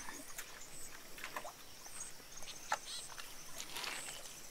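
Outdoor rural ambience with scattered bird calls: short high chirps and a few quick downward-sliding whistles, over a faint steady hiss.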